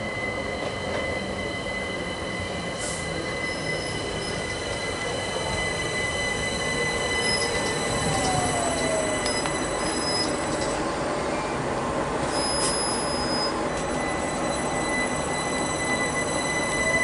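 London Overground class 378 electric multiple unit running into the platform close by, with a steady high wheel squeal over the running noise. Its electric motor whine falls in pitch as it slows about halfway through, and a rising whine starts near the end.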